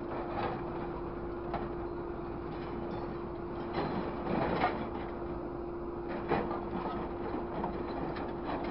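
A grapple truck's orange-peel grapple handling scrap metal: the machine hums steadily under a rumble while scrap clanks and rattles against the steel jaws and the pile, with a bigger clatter about four seconds in as a load drops, and further clanks near the start, around six seconds and at the end.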